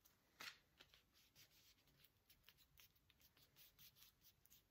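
Faint rustling and soft taps of paper card being handled, with a slightly louder click about half a second in.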